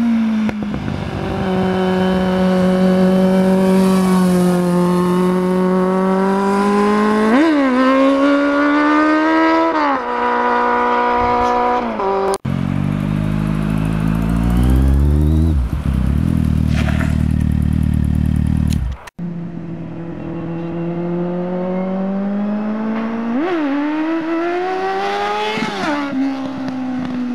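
Kawasaki Z750's inline-four engine being ridden hard, its note climbing under acceleration with quick dips and jumps in pitch at the gear changes. It comes in three stretches that cut off suddenly twice, the middle one a deeper, heavier note.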